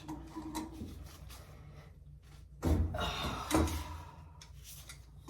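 Light knocks and a short clatter about three seconds in, from pipe fittings and tools being handled while the drip-leg pipe is levelled.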